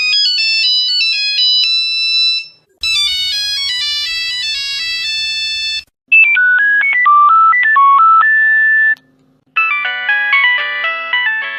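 Nokia mobile phone ringtones played one after another: four short beeping synthesized melodies, each cut off after about three seconds with a brief silence before the next. The third tune sits lower in pitch over a faint steady hum.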